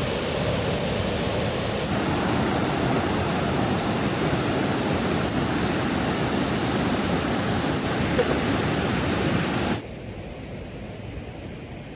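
Steady rushing water noise of a river and falling rain. It steps slightly louder about two seconds in, then near the end drops suddenly to a quieter, duller hiss.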